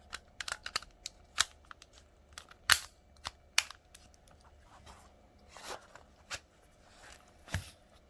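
Irregular sharp clicks and clacks of small hard objects being handled, about a dozen, the loudest a little under 3 seconds in and near the end.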